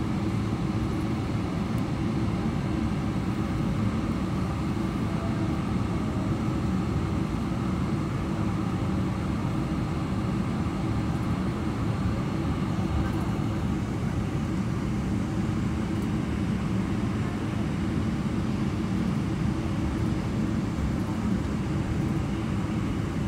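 Steady low cabin rumble of a Boeing 777-300ER taxiing, heard from inside the cabin over the wing. Its GE90-115B turbofans are at idle taxi thrust.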